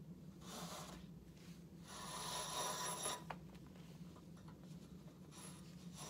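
Fabric restraint strap rubbing and sliding against a hospital bed's metal frame as it is pulled through and wrapped: a short swish about half a second in, a longer, louder one about two seconds in, then a light click.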